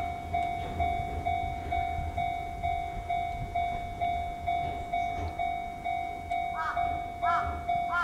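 Japanese level-crossing warning bell ringing its steady 'kan-kan' at about two strikes a second, over the low rumble of an Enoden train passing, which fades about five seconds in. A second, higher-pitched ringing joins in near the end.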